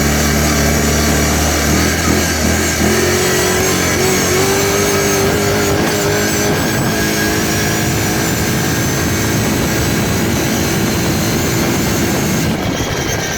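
2007 Kawasaki Brute Force ATV engine running hard at speed, its pitch climbing about three seconds in and then holding high and steady.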